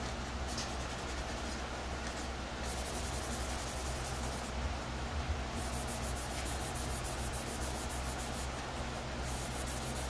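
Fine sanding sponge scuffing a plastic helmet shell by hand: a scratchy rubbing in spells of a few seconds with short breaks, keying the surface for primer. A steady low hum runs underneath.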